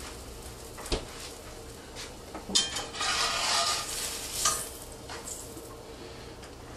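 French toast frying in a pan: a sharp clink of a utensil against the pan about a second in, then a burst of sizzling lasting about two seconds in the middle.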